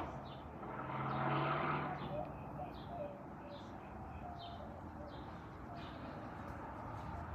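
A motor vehicle passes close by, loudest about a second in, and then fades. Faint, short bird calls and small repeated high chirps follow over a steady background hum.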